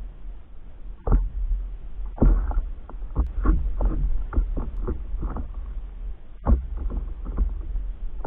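Small waves slapping and knocking against the hull of a stand-up paddleboard in irregular bursts, over a steady low rumble.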